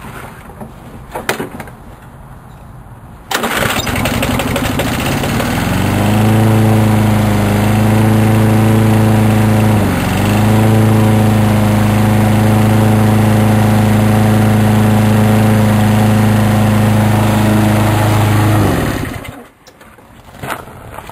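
A Sears Craftsman lawn mower's 6.75 HP single-cylinder engine starts about three seconds in, picks up to speed, and runs steadily at a constant pitch with a brief dip near the middle. It is shut off near the end and quickly dies away.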